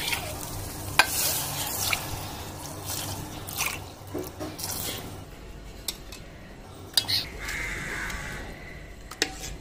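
Water poured from a steel vessel into a steel tumbler and tipped into a pot of rice and masala, splashing, with a few sharp clinks of the steel. Near the end a wooden spoon stirs the wet rice in the pot.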